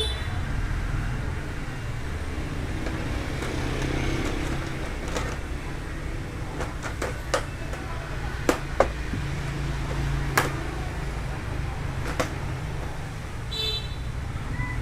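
Steady road traffic rumble, with a few sharp clicks and knocks in the middle and a vehicle horn toot near the end.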